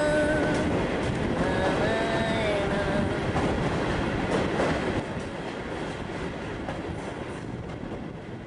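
Steady rumble of a passenger train carriage on the move, heard from inside, with a brief held tone about two seconds in. It drops in level about five seconds in and fades out near the end.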